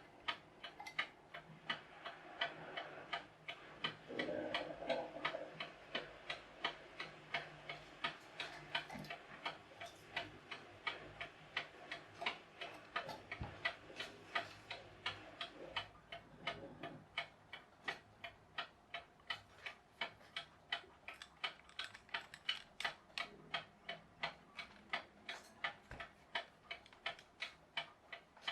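Wind-up mechanical clock, many of its parts replaced with 3D-printed ones, ticking steadily at a little over two ticks a second, with faint handling noises now and then.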